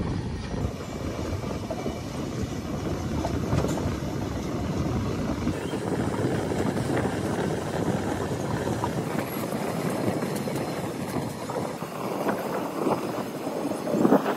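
Siddeshwar Express passenger train running, a steady rumble of the moving train.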